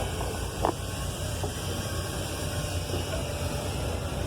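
Fishing boat's engine running with a steady low rumble, under an even hiss of wind and sea.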